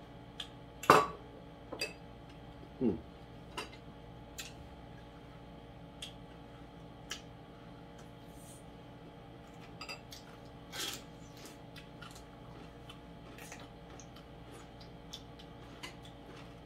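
Spoons clinking and tapping against ceramic bowls and plates while eating, in scattered single clicks, the loudest about a second in, over a steady low hum. A brief falling squeak comes about three seconds in.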